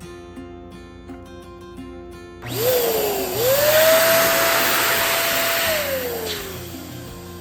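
Small electric balloon pump running: a loud hiss of air with a motor whine that quickly rises in pitch, holds steady, then winds down and fades near the end.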